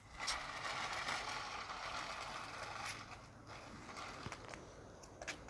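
Toy remote-control car's small electric motor and plastic gears running as it drives, louder for the first three seconds and then quieter.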